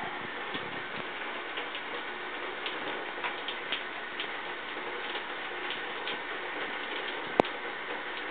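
Shower spray running steadily, with scattered light ticks and one sharp click about seven seconds in.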